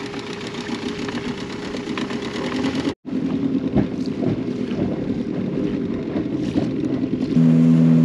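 Car engine running while driving, a steady drone. It cuts out for an instant about three seconds in, a few knocks follow, and near the end the hum turns louder and steadier.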